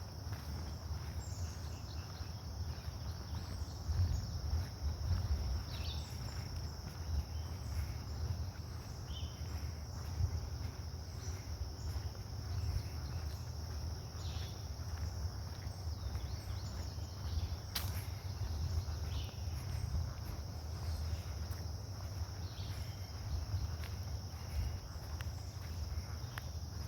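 A steady high-pitched insect chorus, crickets, drones without a break over a low rumble, with scattered faint clicks and one sharper snap about two-thirds of the way through.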